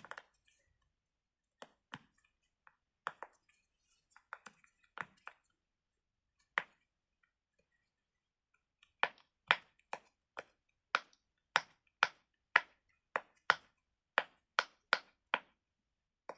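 Pop-it fidget toy having its bubbles pushed through one at a time with a finger: a few scattered pops, then a steady run of about two pops a second in the second half. The pops are not that loud, and the bubbles at the back are a little hard to pop.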